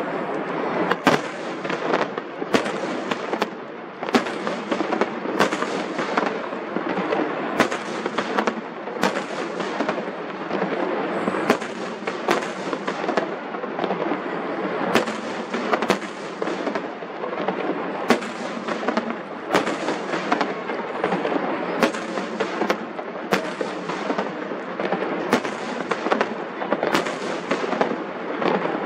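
Fireworks display: aerial shells bursting in a fast run of sharp bangs, about one or two a second, over a continuous din.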